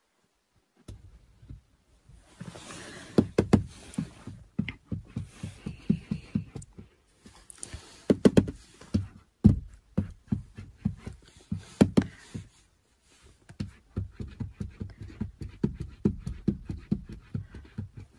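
A cat's front paws knocking and tapping on a car windshield in quick, uneven runs of soft thumps with a few heavier knocks, heard through the glass from inside the car. There is a short lull a little past two-thirds through.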